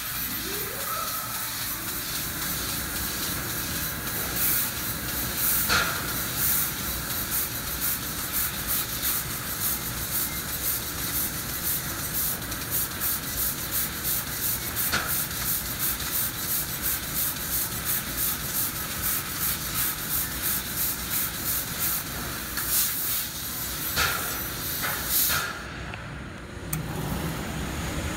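A 2000 W fiber laser cutting stainless steel sheet: a steady hiss of assist gas at the cutting head, pulsing quickly several times a second through the middle, with a few louder sharp bursts and a short rising whine about a second in.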